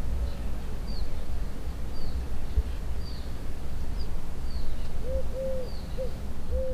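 Birds calling outdoors: a small bird gives short high chirps about once a second, and from about five seconds in a dove coos in a run of low, arched notes. A steady low rumble runs underneath.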